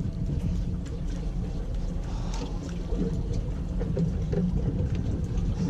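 Boat engine running steadily, a low rumble.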